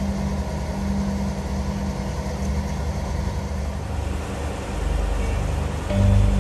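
Heavy diesel engine of a railway recovery crane running steadily with a low, even hum. It grows louder near the end.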